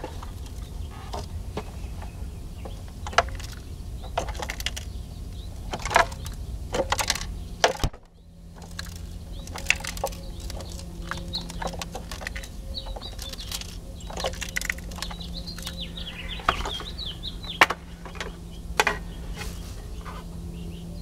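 Scattered plastic clicks and knocks from handling a portable radio's cabinet and battery compartment, with a few bird chirps in the background.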